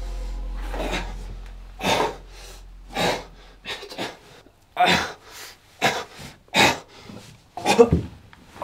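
A person breathing hard and fast, with harsh, noisy breaths about once a second. A low drone fades out about four seconds in.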